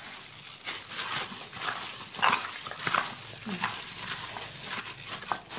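Raw pork ribs being mixed by a hand in a plastic bag in a stainless steel bowl: repeated wet squelching and plastic crinkling strokes about every half second. A few brief squeaks come near the middle.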